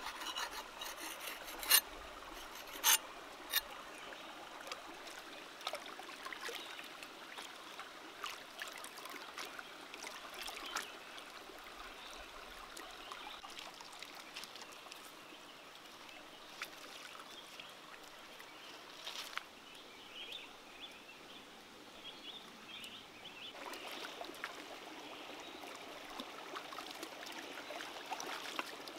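A shallow stream trickling steadily, with three sharp knocks of a cleaver cutting down through a mushroom clump onto stone in the first few seconds. Near the end the water sloshes louder as hands wash something in the stream.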